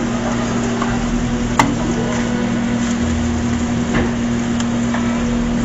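Steady low hum over a hiss of room noise, with one sharp tap about a second and a half in and fainter taps near the end.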